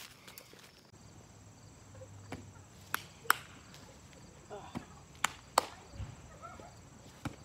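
Sharp slaps of a small ball hitting hands as it is tossed back and forth and caught. Two pairs of slaps come about a third of a second apart, and a single slap follows near the end.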